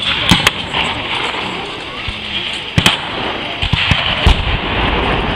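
Scattered gunshots from black-powder firearms firing blanks: a quick pair about a third of a second in, a single shot near three seconds, then several more in quick succession around four seconds.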